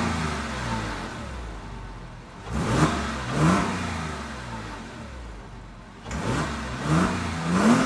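Porsche 997 Carrera flat-six on its stock factory exhaust, revved in short throttle blips, two pairs of quick rises in revs each falling straight back.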